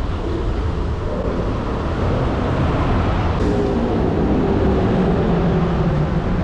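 Steady road and engine noise heard inside a moving car's cabin, a low rumble with a faint wavering hum.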